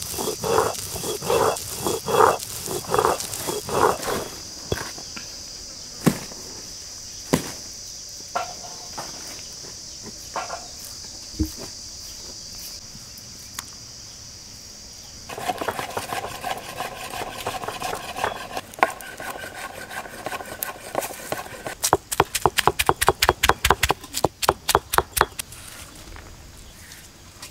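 Stone roller grinding wet spice paste on a flat grinding stone, in steady back-and-forth strokes about two a second, over a constant high chirring of crickets. Near the end comes a quick run of knife chops as shallots are cut on a block.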